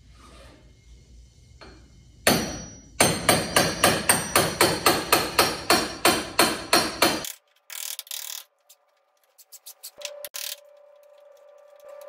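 Hammer driving a chisel against the metal lock ring on top of a fuel tank, knocking the ring round to unscrew it and free the fuel pump. After a first blow, a quick even run of sharp strikes comes at about three a second for some four seconds, then stops abruptly.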